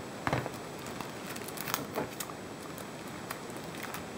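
Plastic photo-album pocket pages crinkling and clicking as they are handled and turned: a sharp crackle about a third of a second in, another pair near two seconds in, and lighter ticks between.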